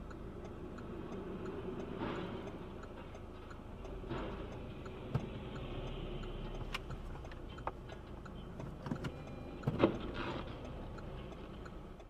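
Car cabin sound from a dashcam: a steady engine and road hum with faint, evenly spaced ticking. A few sharp knocks come through, the loudest about ten seconds in.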